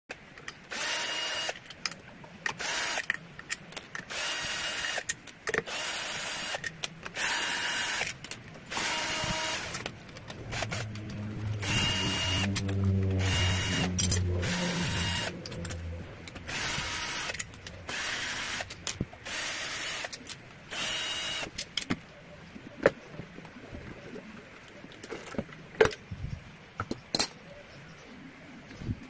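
Cordless drill-driver spinning out the CVT cover bolts of a Honda Scoopy in about a dozen short whining bursts, with a low hum under the middle ones. In the last several seconds the motor stops and only scattered clicks and knocks of metal parts being handled are left.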